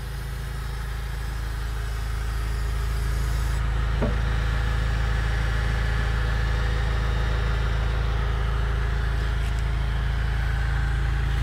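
Crown 2.5-tonne forklift's engine idling steadily, getting louder over the first three seconds and then holding level.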